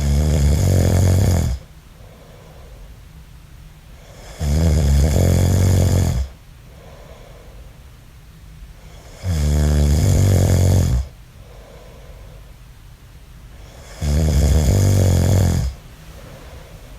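A man snoring in his sleep: four loud snores at a regular pace, about one every five seconds, each about a second and a half long, with softer breathing between them.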